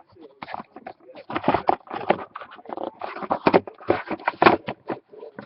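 Crinkling and rustling of packaging as a hobby box of trading cards is handled and opened, a run of quick irregular crackles.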